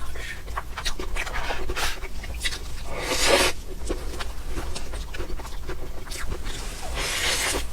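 Close-miked eating sounds of mousse cake: many small wet mouth clicks and smacks as it is chewed, with two longer breathy hisses about three and seven seconds in.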